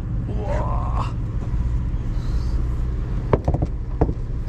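Sportfishing boat's engine running with a steady low rumble. A brief rising tone comes about half a second in, and a few sharp knocks about three to four seconds in.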